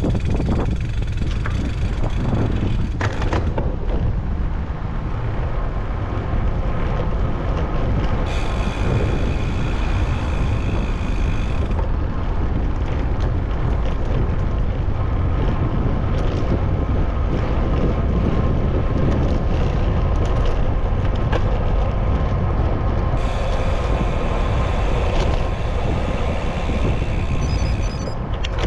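Wind buffeting the microphone of a camera on a moving bicycle, over the steady noise of city traffic. Twice a high squeal with several pitches holds for a few seconds.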